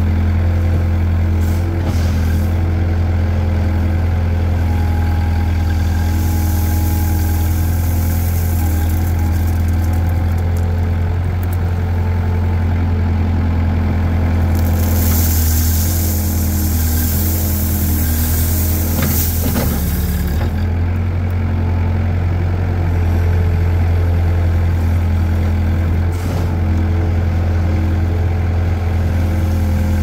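Mini excavator's diesel engine running steadily as the boom and bucket work. In the middle, gravel pours out of the bucket with a rushing, rattling hiss for several seconds.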